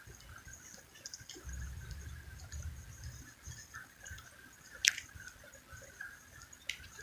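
Insects chirping steadily in the night air, with a low rumble for a second or two early on and a sharp click about five seconds in, followed by a fainter click near the end.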